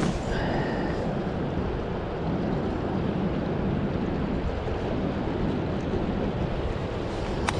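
Wind buffeting the microphone over waves washing on the jetty rocks, a steady low rush. A sharp click at the very start is followed by a short high whir, and another sharp click comes near the end.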